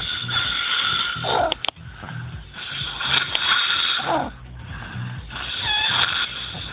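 A man snoring in his sleep: two wheezy snores about three seconds apart.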